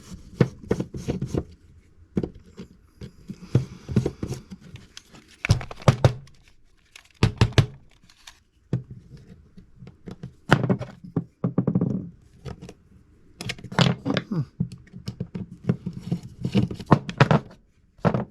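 Small Phillips screws being backed out of a plastic tape measure case with a screwdriver, with the case handled and turned over: irregular clicks, knocks and scraping of tool on plastic, in bunches with short pauses.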